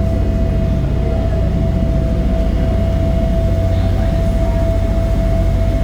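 Steady, loud low rumble of a moving vehicle heard from inside, with a constant whine over it.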